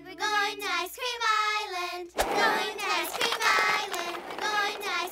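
Cartoon song: high, child-like voices singing a melody over backing music, breaking off briefly about two seconds in.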